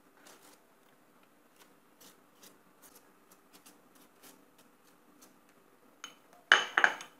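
Faint, light taps and dabs of a silicone pastry brush spreading egg wash over soft dough rounds on a parchment-lined baking tray. Near the end, a brief, louder clatter of kitchenware being handled.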